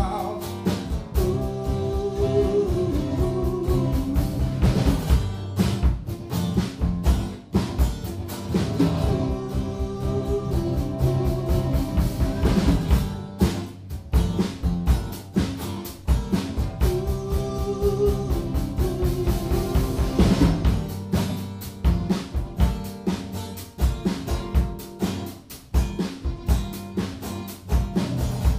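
Live band music: acoustic guitars strummed over a drum kit keeping a steady beat, with a male voice singing phrases that come back about every eight seconds.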